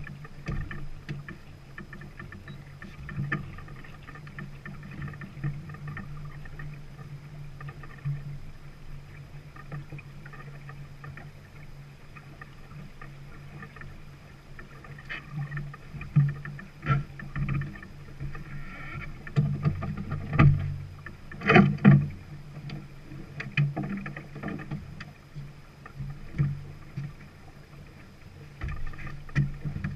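Peterson 34 sailing yacht under way: water washing along the hull over a steady low hum. Scattered knocks and thumps on board come in a cluster through the second half, the loudest a little past twenty seconds in.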